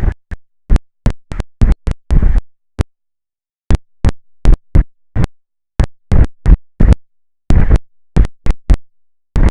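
Wind buffeting the outdoor camera's microphone, heard as loud, distorted bursts of rumbling noise that cut in and out abruptly and irregularly, with dead silence between them.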